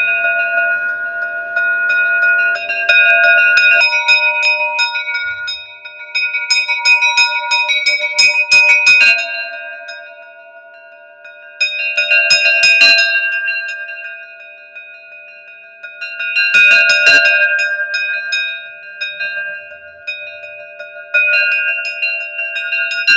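Metal bells rung in bursts of rapid strikes every four or five seconds, their several pitches ringing on between the bursts.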